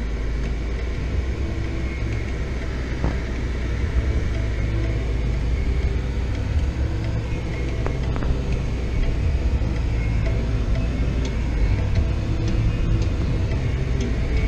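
Steady low rumble of engine and tyre noise heard from inside the cabin of a 2018 Subaru WRX driving along at road speed.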